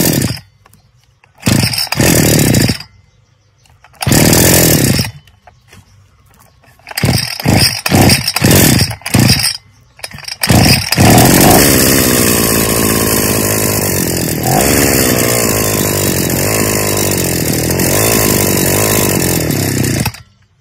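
TL43 two-stroke brush-cutter engine, just assembled, on a test start: it fires in several short bursts that die away, then catches about eleven seconds in and runs steadily until it is shut off just before the end.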